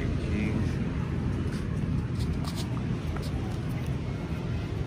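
Wind buffeting the microphone outdoors, a steady uneven low rumble, with a few faint ticks between about two and three and a half seconds in.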